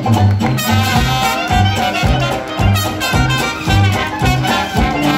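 A traditional New Orleans jazz band plays live: sousaphone bass notes pulse about twice a second under clarinet, cornet and trombone lines, with guitar, banjo and washboard. Just under a second in, the full ensemble comes in together.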